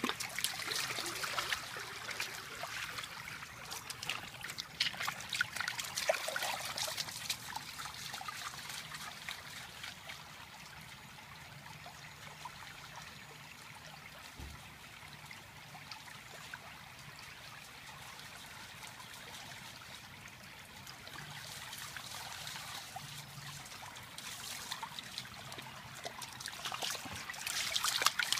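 Shallow creek water running and trickling over a concrete channel, with splashing from a Chesapeake Bay Retriever wading through it close by for the first several seconds and again near the end; in between, only the steady running water.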